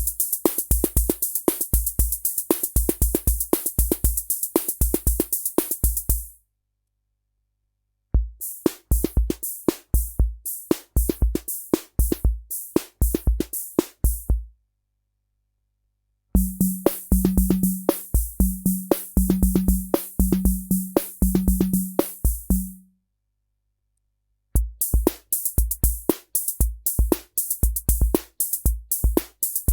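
Korg SR-120 Mini Pops analog drum machine playing its 'Rock' rhythm patterns, with bass drum thumps under a hissy cymbal. It plays in runs of about six seconds separated by short silences. In the third run a low pitched drum tone sounds over the beat.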